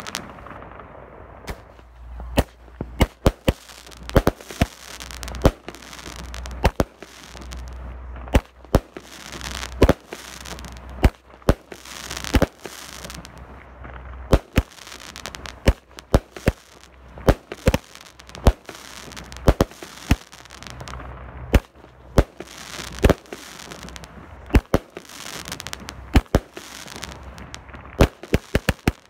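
A 25-shot Orion 'Vampire' firework cake firing: sharp bangs from the shots and bursting shells, irregular and about one or two a second, with crackling and a low rumble between them.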